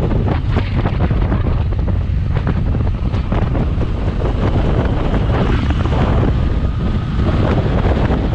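Steady wind rushing over the microphone of a camera mounted on a moving motorcycle, with the bike's engine running underneath.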